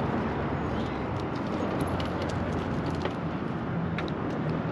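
Steady outdoor street noise: an even rush with a faint low hum that comes and goes and a few light clicks.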